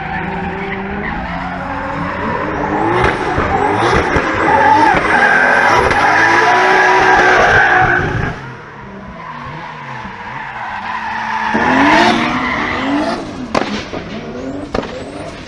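Lexus GS 300's 2JZ inline-six, tuned to over 600 hp, revving hard with its pitch rising and falling while the tyres squeal. The loudest stretch, about three to eight seconds in, cuts off sharply, and the engine and tyres swell again around twelve seconds in.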